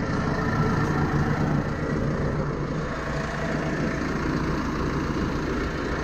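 Steyr Profi 4110 CVT tractor's four-cylinder diesel engine idling steadily while the tractor stands in park.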